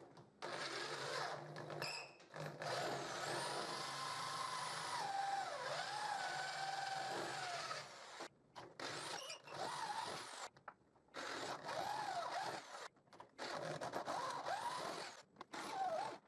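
Hand-held electric drill with a 10 mm bit boring through wooden clamp strips, widening the existing bolt holes. The motor whine wavers in pitch as the bit loads up. It runs for about eight seconds, then comes in several shorter bursts that each stop abruptly.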